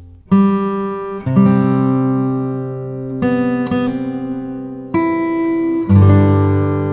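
Background music: acoustic guitar chords struck and left to ring out, a new chord every second or two.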